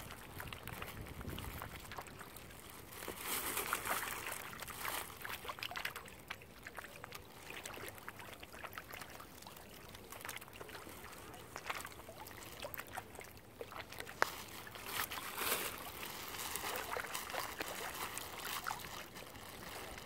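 Water splashing and sloshing around mute swans as they dip their bills and necks into the water, with scattered small splashes and drips. The splashing grows louder twice, a few seconds in and again past the middle.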